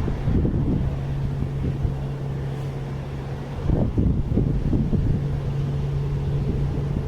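A low, steady engine hum with wind gusting on the microphone. The hum breaks off briefly a little past the middle, where a strong gust hits, then comes back.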